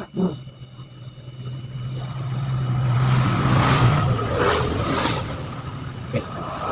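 A motor vehicle passing close by: a steady engine hum with road noise that swells over about three seconds, then fades.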